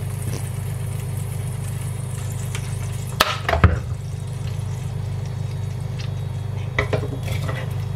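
Cooking oil poured from a bottle into a stainless steel frying pan on an induction hob, then heating quietly, over a steady low electrical hum. A couple of short knocks come about three seconds in.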